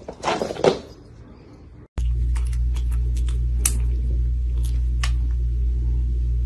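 A kitten purring loudly and steadily, a low even rumble, with faint wet clicks as it licks milk from its lips. Before it, during the first second, a couple of short rustling noises.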